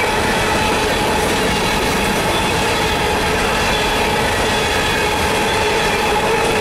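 Empty steel coal hopper cars of a freight train rolling past: a steady, loud rumble of wheels on rail, with high steady squealing tones from the wheels over it.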